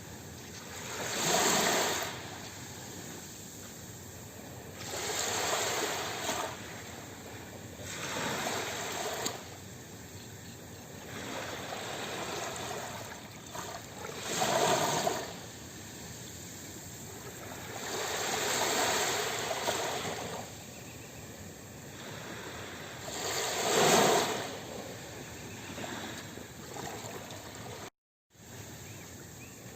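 Sea waves breaking and washing up on shore, surging every few seconds, with the loudest break about three-quarters of the way through. The sound cuts out for a moment near the end.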